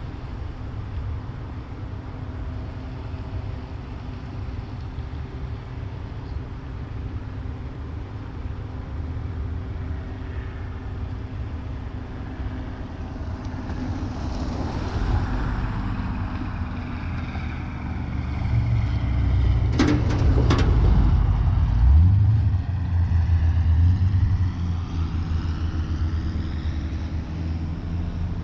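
A car driving: steady engine and tyre rumble, growing louder past the middle, with two sharp knocks about two-thirds of the way through.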